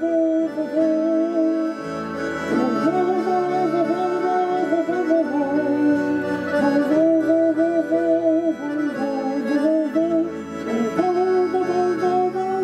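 Accordion playing the instrumental interlude of a song: a melody of held and moving notes over lower accompanying notes.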